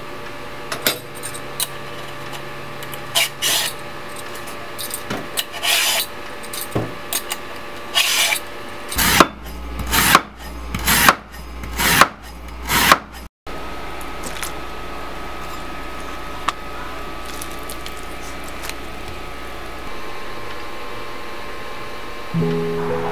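Kitchen knife slicing a lotus root into rounds on a wooden cutting board: about six strong strokes, roughly two a second, each cutting through and striking the board. Before that, a few scattered scraping strokes as the root is handled.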